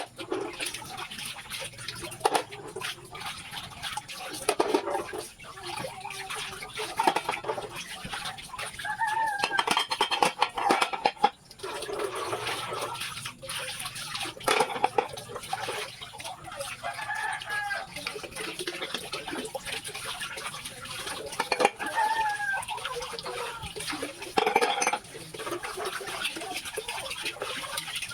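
Chickens clucking and a rooster crowing, over small clinks and splashes of water from washing up.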